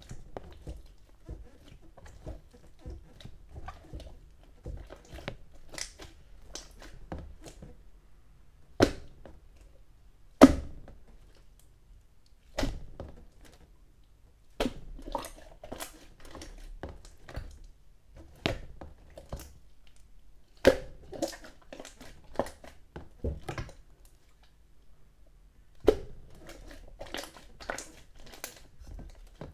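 Hands squishing and pressing green pudding water slime, making irregular wet clicks and pops, the loudest about ten seconds in.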